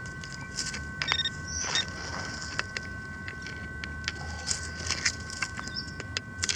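Hand digger cutting and scraping into soil, a string of short scrapes and clicks of metal and grit. Faint steady high tones run underneath.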